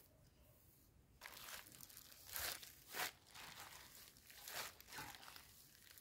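A clear plastic bag crinkling as it is handled and spread out. It comes in an uneven run of rustles that starts about a second in.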